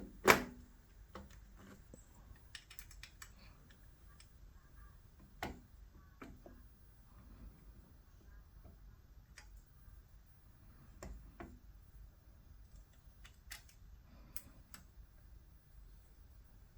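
Scattered light clicks and knocks of an Olympus CX31 microscope head being handled and fitted onto the stand, with the loudest knock right at the start and a few sharper clicks spread through the rest.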